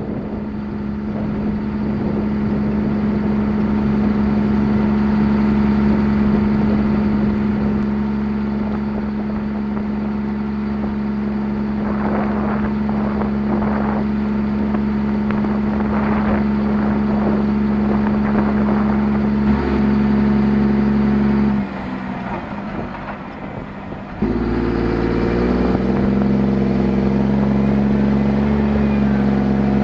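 John Deere 7230R tractor's six-cylinder diesel engine running steadily under load while pulling a boom sprayer. The sound drops away abruptly about twenty seconds in and returns a couple of seconds later at a slightly shifting pitch.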